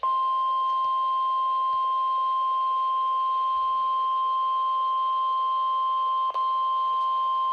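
NOAA Weather Radio 1050 Hz warning alarm tone: one continuous, steady, high-pitched beep with a momentary dropout about six seconds in. It is the alert signal that a warning broadcast is about to follow.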